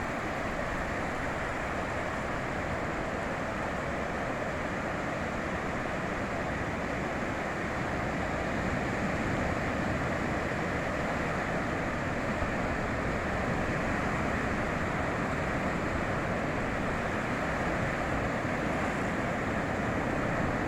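Sea surf on a beach: a steady, even rush of breaking waves with no single wave crash standing out, growing slightly louder about eight seconds in.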